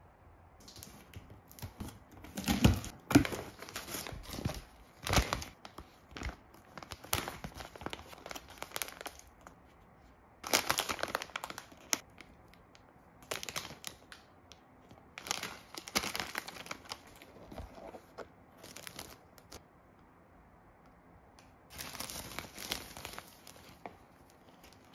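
Packaging being handled during an unboxing: plastic wrappers and plastic bags crinkling and rustling in irregular bursts with quiet gaps between. The loudest bursts come about three seconds in.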